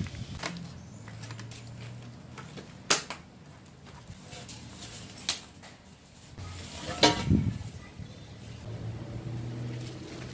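Long white PVC pipes being handled, knocking and clattering against each other and the ground in a few sharp knocks, the loudest about seven seconds in with a brief ring.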